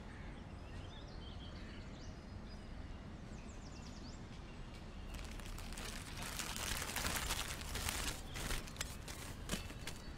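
Outdoor background with a few faint bird chirps, then from about five seconds in a dense crinkling rustle of a white wrapping being handled and pulled open around a book.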